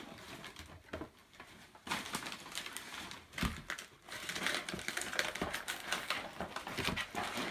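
Christmas wrapping paper being torn open and crumpled by hand, a dense crackling rustle that starts about two seconds in, with quieter rustling of paper before it.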